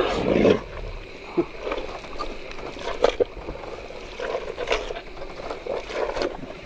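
Tame hippopotamus breathing heavily at close range: a loud low exhale at the start, then scattered shorter, quieter breaths and small mouth noises.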